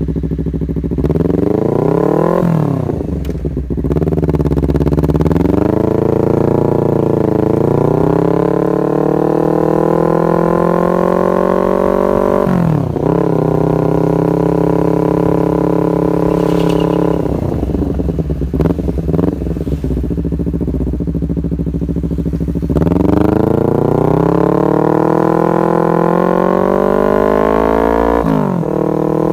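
Honda CBR250RR engine through an R9 aftermarket exhaust, revved hard: several long revs climb steadily in pitch over a few seconds and then drop back sharply, with a spell of lower, uneven blipping in between.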